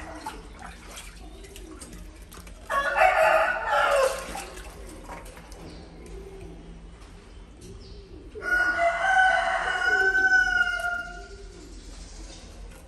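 A bird calling twice from off-picture: two long, loud calls, the second about two and a half seconds long, holding its pitch and dropping slightly at the end.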